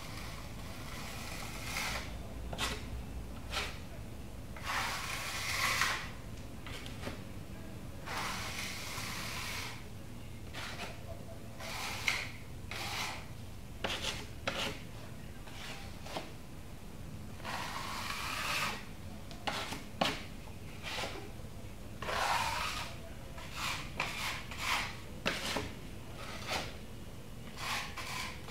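Metal putty knife scraping two-part epoxy paste into a plaster wall crack and smoothing it: irregular gritty strokes of about a second each, with short sharp clicks and taps of the blade between them.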